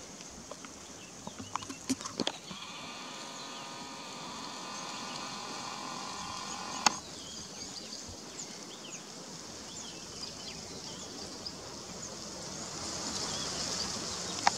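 Outdoor bush ambience: short high chirps throughout, a few soft clicks near the start, and a steady buzzing tone of about four seconds that ends at a sharp click about seven seconds in.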